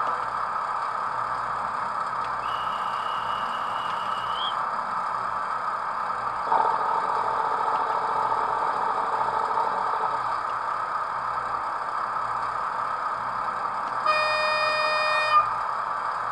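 Sound decoder of a Märklin model DB class 216 diesel locomotive playing a steady diesel engine hum through the model's small speaker. A thin high squeal comes in briefly a few seconds in, the engine note thickens for a few seconds near the middle, and a short horn blast sounds near the end.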